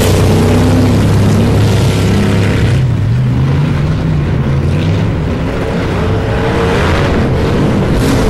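Engines of several off-road race buggies running hard on a dirt course, their pitch rising and falling as the drivers work the throttle, over a steady low drone.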